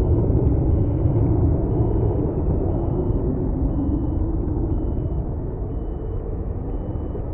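Jet engines of a Southwest Airlines Boeing 737 heard from a distance as it rolls out on the runway after landing: a steady low rumble that slowly fades.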